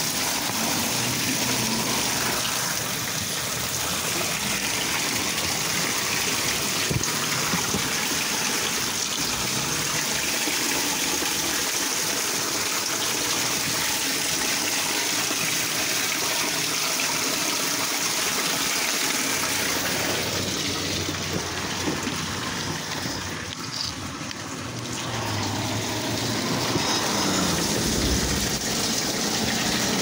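Water gushing steadily down through a street storm drain grate as the leaves and debris clogging it are cleared. The rush drops for a few seconds about two-thirds of the way through, then picks up again.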